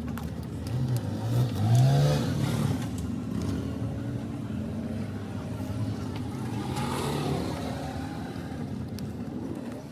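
An engine running steadily, rising in pitch and growing louder about a second or two in, then settling.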